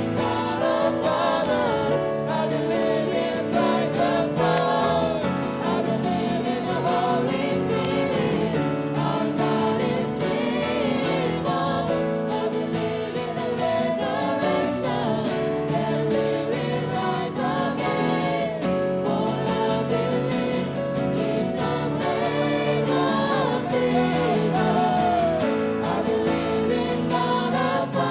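A group singing a Korean-language worship song together, many voices in unison over guitar accompaniment.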